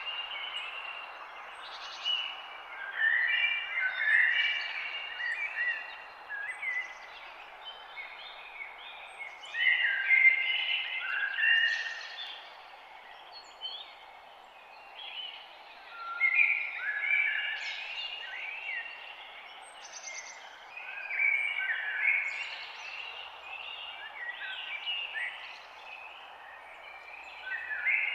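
Songbirds singing in phrases of quick sliding notes, a new phrase every few seconds, over a steady hiss of natural outdoor background.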